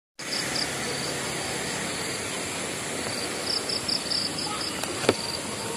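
Insects chirping in short repeated pulses over a steady outdoor hiss, with a single sharp click about five seconds in.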